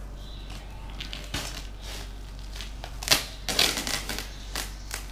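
A parcel box's packaging being pulled and torn open by hand: irregular crinkling and tearing, loudest about three seconds in.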